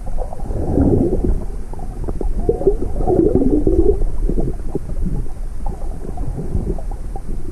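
Muffled underwater sound through a submerged camera: low rumbling water movement and bubbling, with wavering muffled tones about a second in and again from about two and a half to four seconds.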